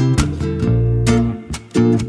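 Instrumental background music of plucked, guitar-like chords, each note starting sharply and ringing on.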